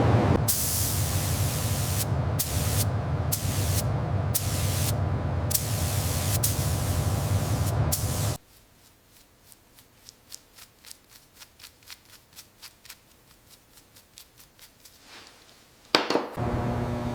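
Compressed-air spray hissing on and off in half a dozen bursts over a steady low drone, cut off sharply after about eight seconds. A quiet stretch with a run of soft ticks follows, then a sudden loud onset near the end, after which a steady electrical hum sets in.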